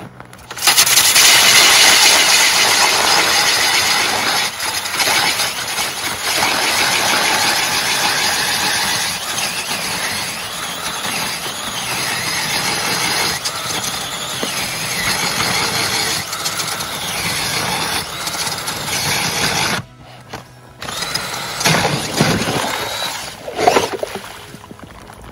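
Battery-powered ice auger boring through lake ice: the motor runs and the blade grinds steadily for about twenty seconds, stops briefly, then runs again in shorter uneven spells near the end as the hole breaks through and slush wells up.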